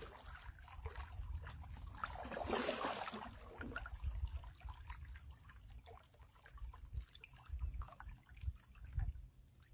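Water trickling and dripping off a raised canoe paddle between strokes, swelling for about a second and a half near the middle, with scattered small drips and a few low bumps.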